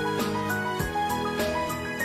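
Instrumental background music: a melody of held notes over a steady beat.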